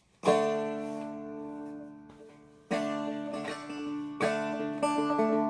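Seagull Merlin M4, a four-string fretted dulcimer-style instrument, played claw hammer / finger pick style. A chord struck just after the start rings out and slowly fades, and fresh notes and chords come in a few times later, over steadily ringing drone strings.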